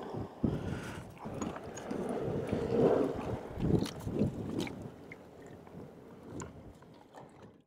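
Handling noise at a plastic cooler box as a caught fish and a frozen bottle are stowed inside: irregular knocks, clicks and rustling that fade toward the end.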